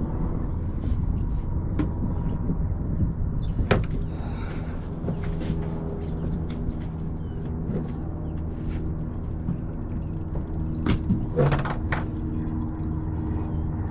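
Boat's electric trolling motor holding spot-lock, humming steadily over wind rumble, with a few sharp knocks about four and eleven seconds in.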